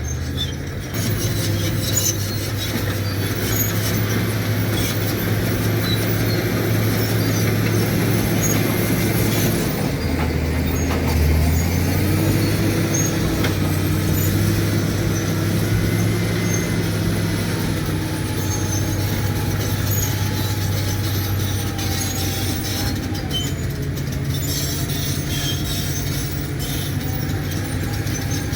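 Caterpillar D7 crawler bulldozer working: its diesel engine drones steadily, its note shifting about ten seconds in. Over it are a clicking rattle and thin high whines from the running gear.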